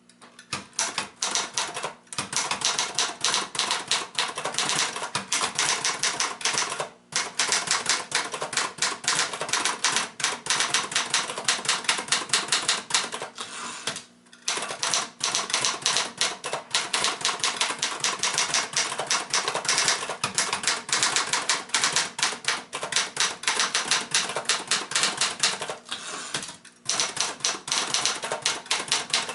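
Remington Ten Forty portable typewriter being typed on briskly: a fast, steady run of keystrokes clacking several times a second, with short breaks four times.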